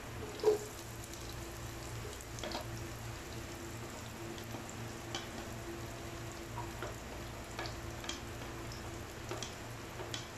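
Minced garlic and chopped red onions sizzling steadily in hot oil in a non-stick wok, with faint scattered crackles. A sharper knock comes about half a second in as the onions are pushed in off a plate with a plastic spatula.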